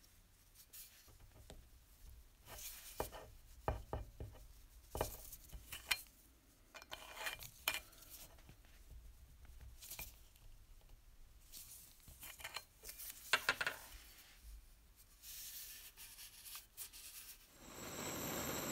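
Small brass toy steam-engine boiler and its fittings handled in gloved hands: scattered light metallic clicks, taps and rubbing. About a second before the end a steady hiss starts: a gas torch flame.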